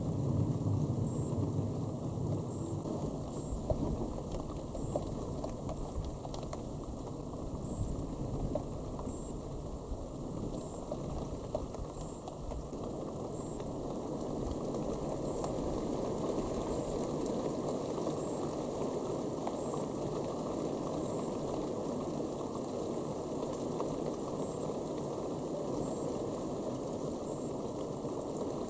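Steady rain falling during a thunderstorm, a constant watery hiss, with the tail of a low thunder rumble fading out in the first second or so.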